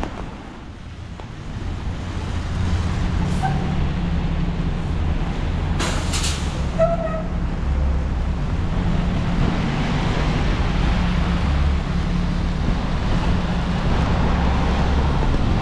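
Traffic on rain-wet city streets with a steady low rumble of wind on the microphone, and a short sharp hiss about six seconds in.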